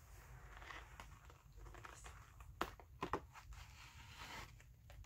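Faint handling of a cardboard box: the inner box being slid out of its printed cardboard sleeve, with a few light clicks a little past the middle.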